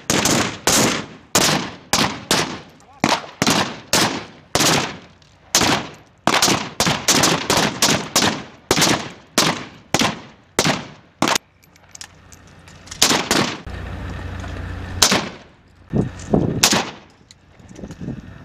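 AK-47 assault rifles firing from several shooters on a range: fast, irregular single shots overlapping, several a second, each with a short echo. The firing thins out after about eleven seconds, a low steady rumble comes in briefly, and a few more shots follow near the end.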